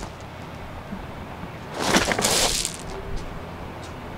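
A short cracking crunch about two seconds in, from a mock fight with homemade tape-wrapped wooden swords on gravel.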